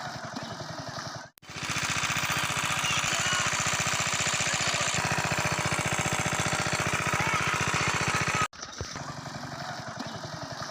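Small pump engine running steadily with a fast, even chugging beat as it pumps water out of a pond. The sound drops out abruptly about a second in, comes back louder, and drops back to the quieter level near the end.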